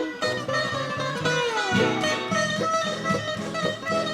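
Plucked guitar music with a steady rhythmic pattern and a sliding descending phrase about a second in.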